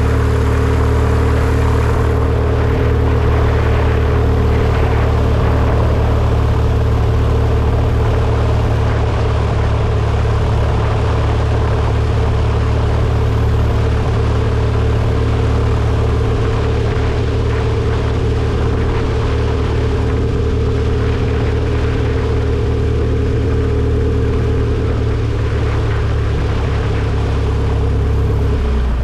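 Mooney M20E's four-cylinder Lycoming engine and propeller running steadily at low ground power, with a deep, even drone. The pitch shifts slightly near the end.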